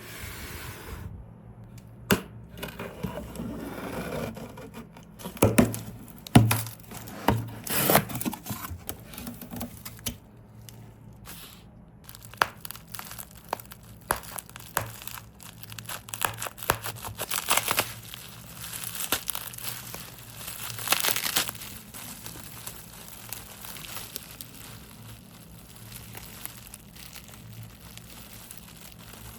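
Crinkling and rustling from hands handling small objects, broken by many sharp clicks and knocks; the loudest knocks come in a cluster about five to eight seconds in, with more rustling bursts past the middle.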